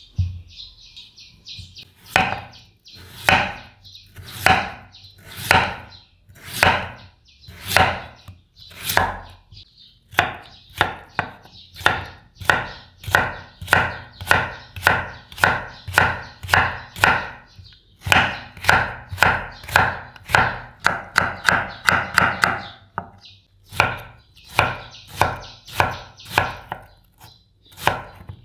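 Chef's knife slicing a peeled raw potato into sticks on a wooden cutting board, each stroke a crisp cut ending in a knock on the board. The cuts start slow, about one a second, speed up to about two a second, then come in a fast run before a short pause and a few more.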